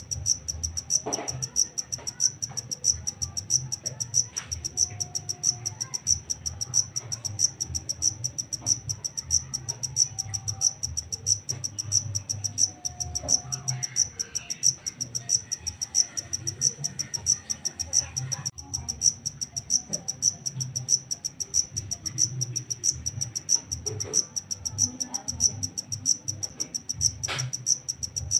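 A black field cricket chirping steadily: a high, pulsed chirp repeated over and over at an even pace, over a low background rumble.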